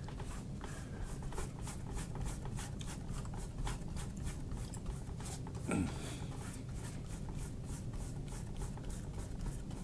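Paintbrush scratching on canvas in quick back-and-forth scrubbing strokes, about four a second, with a brief low murmur from the painter about six seconds in.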